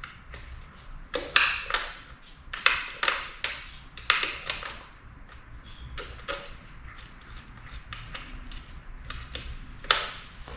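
Sharp metallic clinks and knocks of tools and metal parts being handled, in small clusters with brief ringing and a single louder knock near the end.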